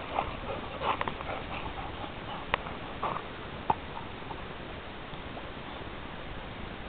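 Dogs panting and moving about on gravel, with two sharp clicks about a second apart near the middle; the last few seconds hold only a faint steady hiss.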